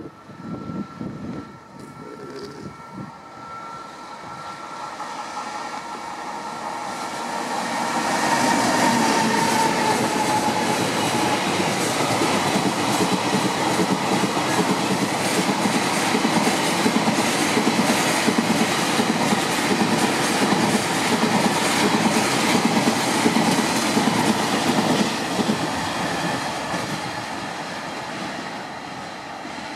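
A freight train passing: a JR Freight EF210 electric locomotive draws near, with a falling whine as it goes by. It is followed by a long string of container flatcars and tank wagons whose wheels clatter over the rail joints in a steady rhythm. The sound grows loud about eight seconds in and fades near the end.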